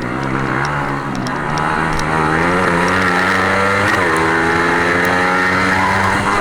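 Racing engine running hard at high revs, its pitch dropping sharply about four seconds in and climbing back up.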